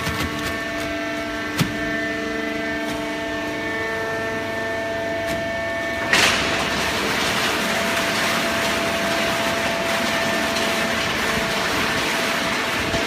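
Hydraulic power unit of a cardboard baler running with a steady whine. About six seconds in, a loud rush of hissing noise starts suddenly and carries on over the whine.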